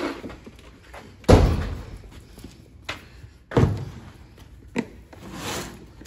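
Two heavy thumps about two seconds apart, with a few lighter knocks in between.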